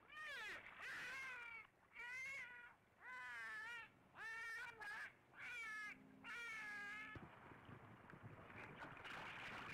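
A dolphin giving a run of about seven squeaky whistling calls, each under a second, bending up and down in pitch. In the last couple of seconds there is faint splashing water.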